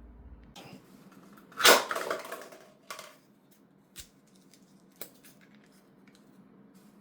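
A sharp plastic snap with a short hiss after it, then a few lighter clicks, from the 3D-printed toy spud gun's parts being handled and fitted together.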